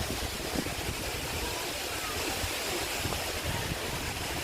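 Steady rushing roar of a waterfall, an even wash of water noise with a low rumble underneath.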